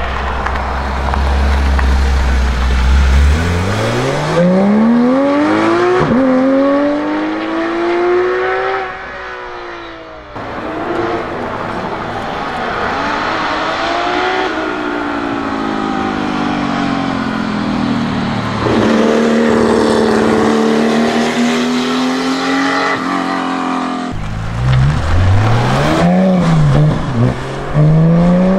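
Porsche 911 flat-six engines, a GT3 road car, a 935 K3 race car and a 911 R, accelerating hard one after another, each engine note rising in long sweeps and dropping at the gear changes. Near the end one engine rises and falls quickly several times in a row.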